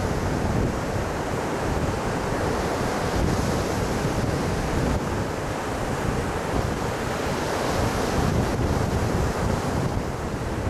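Small surf breaking and washing up a sandy beach in a steady, continuous rush, with wind buffeting the microphone.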